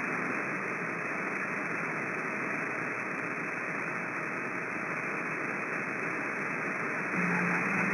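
CB radio receiver giving steady static hiss on channel 6 between transmissions, the narrow muffled hiss of an AM radio channel. About seven seconds in, a low steady hum comes in under the hiss.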